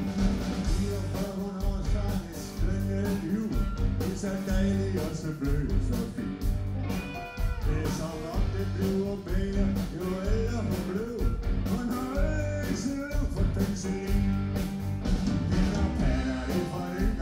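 A live rock band playing a blues-rock number: electric guitars, bass and drums with a steady beat, and a lead line wavering over the top.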